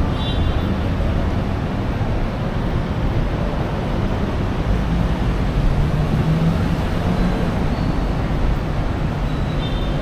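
Steady ambient background noise dominated by a low rumble, with no distinct events.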